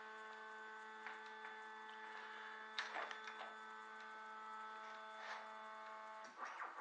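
Stepper motors of a Lowrider 3 CNC machine whining in a steady multi-toned hum as the gantry travels along the table, with a few faint clicks. The tone stops about six seconds in.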